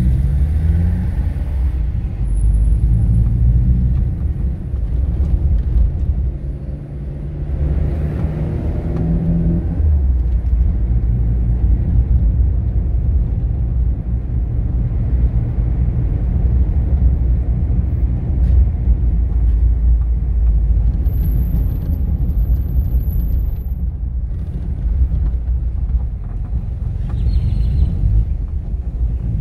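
Car driving, with steady engine and road rumble. An engine note stands out for a few seconds about a third of the way in.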